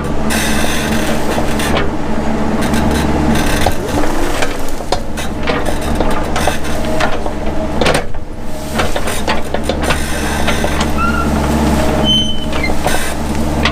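Mini excavator's diesel engine running steadily under load, with frequent sharp knocks and cracks as it works; the engine note dips briefly about a third of the way in and again a little past halfway.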